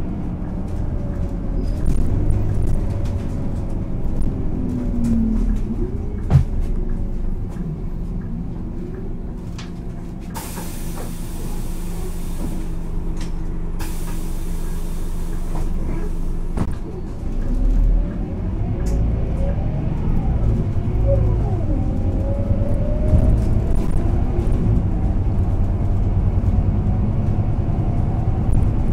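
Scania K230 UB city bus with an EEV diesel engine and ZF gearbox running and driving, its engine pitch rising and falling as it pulls and changes gear. Two long hisses of compressed air come one after the other around the middle.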